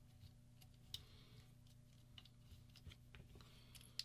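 Faint clicks and light rattles of small parts handled on a paintball marker frame as a switch and its wiring are worked into place, the sharpest click about a second in and another near the end, over a steady low hum.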